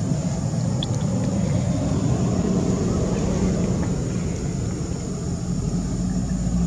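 Low, steady engine rumble.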